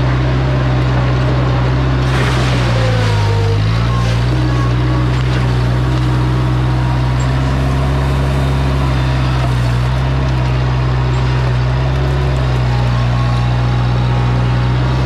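Diesel engine of a Bobcat 843 skid-steer loader running steadily during backfilling. Its pitch sags briefly about two to three seconds in as it takes a load, then recovers.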